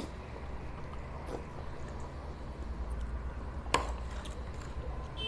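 Eating with a steel spoon: a spoonful of milk-soaked rasabali taken into the mouth at the start, soft mouth sounds, then one sharp clink of the spoon against the ceramic tray as it scoops again near the end. A steady low hum runs underneath.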